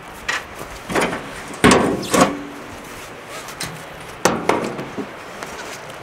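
Metal knocks and scrapes of a rusty steel-barrel smoker being opened and handled: a cluster of clanks, some ringing briefly, loudest about two seconds in, and a second group of knocks past the four-second mark.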